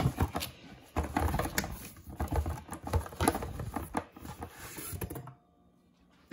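Packaging being handled and unwrapped: rustling and crinkling with many irregular clicks and taps, stopping about five seconds in.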